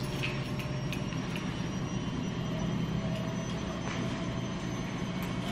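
Washing machine running, a steady low hum and whir, with a few small clicks and clothing rustles over it.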